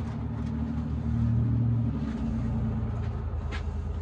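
An engine running with a low hum, loudest a second or two in, then dropping to a lower pitch at about two seconds. A faint click comes near the end.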